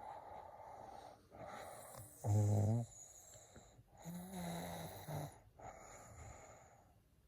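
A person snoring: airy in-and-out breaths around two snores, a loud low snore about two seconds in and a longer, higher-pitched one about four seconds in.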